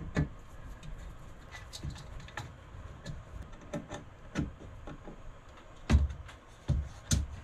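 Light clicks and scrapes of a screwdriver and a metal breaker-panel plate being handled, then a few louder knocks as the plate is set down into its wooden panel cut-out.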